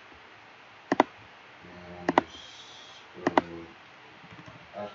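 Computer mouse button clicks: three sharp press-and-release pairs about a second apart.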